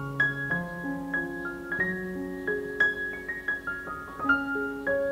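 Background piano music: a gentle melody of single notes over soft held chords.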